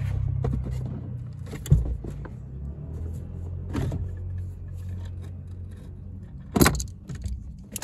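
Sharp metallic knocks and clicks from the Escort's clutch and brake pedal pivot bar as it is pushed through the pedal box, three of them, the loudest near the end. Under them runs a low steady hum.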